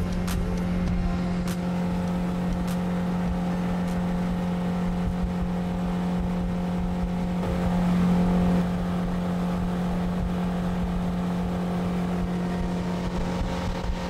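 Mercury jet outboard running steadily at speed with the boat on plane, a constant engine drone over the rush of water and air. The engine note swells briefly about eight seconds in.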